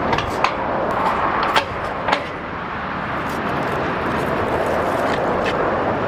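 Steady vehicle noise with a few light clicks near the start.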